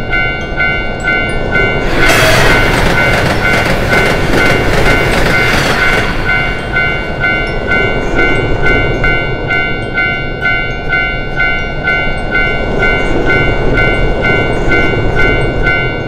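Japanese railway level-crossing alarm ringing a steady, rapid run of electronic dings, with a louder rush of train noise from about two to six seconds in as the Enoden tram comes through.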